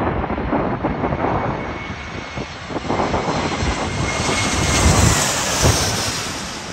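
Jet airliner engines growing louder to a peak about five seconds in, then easing as the aircraft passes. Gusts of wind buffet the microphone throughout.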